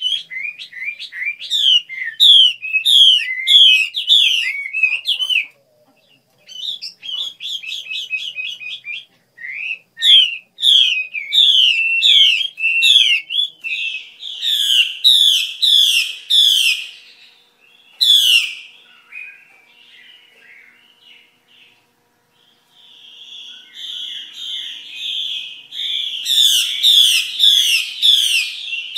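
Caged female Chinese hwamei calling in rapid series of short, downward-slurred notes, about three a second, the 'xùy' call that keepers value in a female for rousing male birds. The bouts break off briefly twice and fall quiet for a few seconds past the middle before starting up again.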